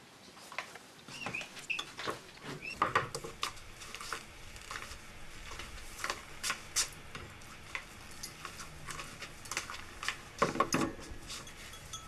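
Kitchen clatter of tea being made: mugs and crockery set down on a worktop and small clinks and knocks, with a louder clunk about ten and a half seconds in.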